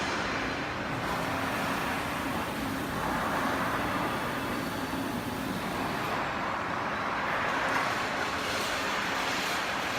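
Steady industrial machine noise: a low hum under an even mechanical hiss, with no distinct strikes or changes.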